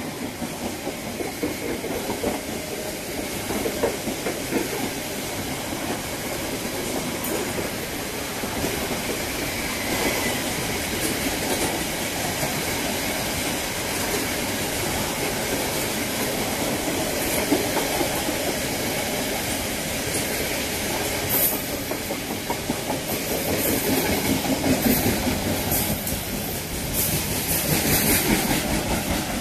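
Wagons of a long container freight train rolling past: a steady rumble of steel wheels running on the rails, with sharper metallic clatter in the last several seconds.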